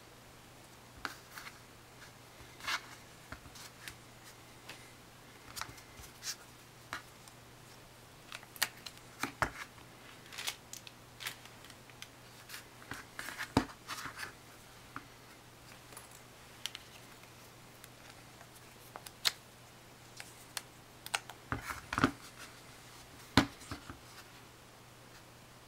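Irregular handling noise from a rubber Speck ToughSkin iPhone case: soft clicks, rubs and scrapes as the case is flexed and gripped and the phone is slid out of it. A faint steady low hum lies underneath.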